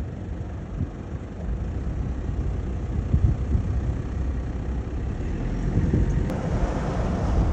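A motor vehicle running, a steady low rumble with a few heavier low thumps about three seconds in. The background noise changes abruptly about six seconds in.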